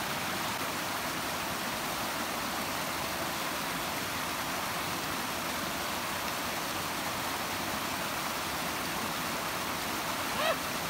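Mountain stream rushing and splashing over rocks and boulders, a steady rush of water.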